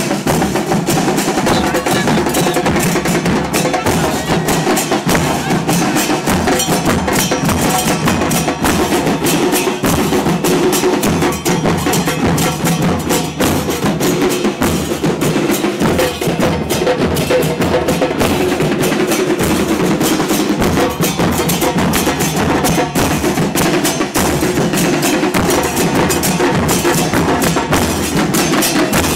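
Carnival percussion band drumming continuously: a dense, fast rhythm of drum strikes with no breaks.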